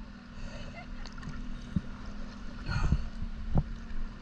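Water sloshing and gurgling over a steady low hum, with a few short dull knocks about two, three and three and a half seconds in.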